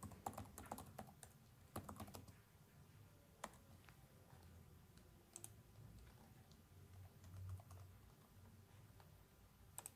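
Faint typing on a computer keyboard: a quick run of keystrokes in the first two seconds, then a few scattered clicks.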